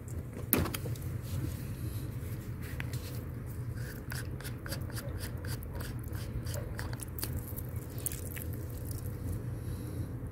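Plastic garden-hose quick-connect coupling pulled off a lawnmower's deck-wash port with one sharp click about half a second in, then a run of small clicks and taps as the fitting is handled. A low steady hum lies underneath.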